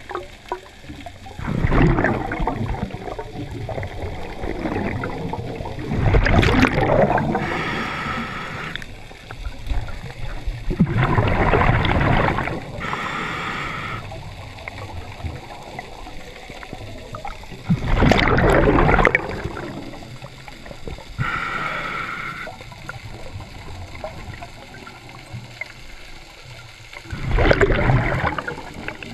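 A scuba diver's regulator breathing underwater, heard through a GoPro housing, with slow breaths. Each exhale is a long gurgling rush of bubbles, about five in all. Between them, each inhale through the regulator comes as a shorter hissing tone.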